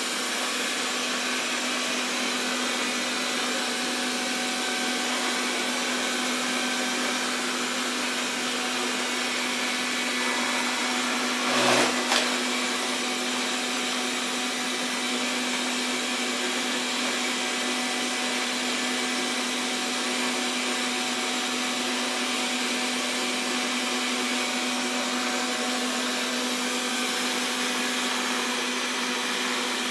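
Xiaomi Mi Robot Vacuum (Mijia) running steadily: an even whir from its suction fan and brushes over a constant hum. About twelve seconds in there is a brief, louder clatter with a short rising tone.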